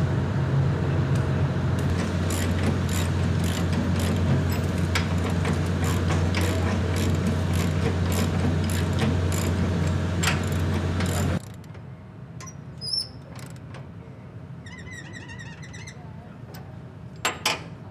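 A large engine runs with a steady low hum, with scattered clicks and knocks over it. About two thirds of the way through it cuts off abruptly, leaving quieter outdoor background with a bird's brief trilled chirp and a couple of sharp knocks near the end.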